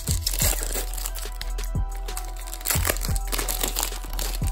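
Foil hockey card pack crinkling as it is torn open and the cards are slid out, over background music with a few low drum thumps.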